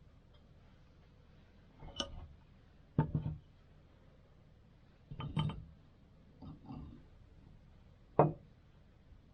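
Tea things being handled: five separate clinks and knocks of cups or glassware set down and moved, spaced a second or two apart, the loudest near the end.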